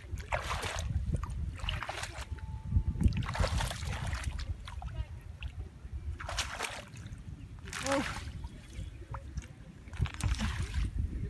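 Hands splashing and sloshing in shallow muddy water among grass, groping for fish in the mud, in several short bursts.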